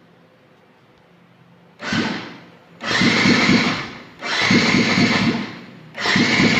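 An engine's newly replaced electric starter cranking the engine in repeated short bursts, four of them about every one and a half seconds. This is the first start after a new cylinder block and piston.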